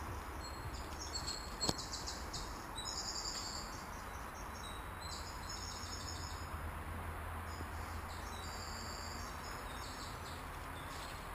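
Woodland ambience: high chirping in short repeated phrases of fast pulses, over a steady hiss and a low rumble. A couple of faint clicks come in the first two seconds.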